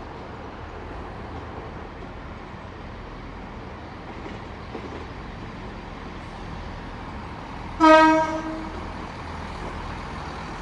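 Horn of a Class 165 Turbo diesel multiple unit sounding once, a single note of about a second, roughly eight seconds in, over a steady low rumble of the running train.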